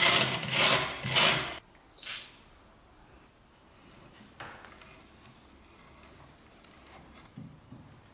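Hand scraping on the rusty steel of an antique bread cutter: three loud rasping strokes in the first second and a half and a shorter one at about two seconds. Then quieter scraping and small ticks as a screwdriver bites into and turns a rusted screw.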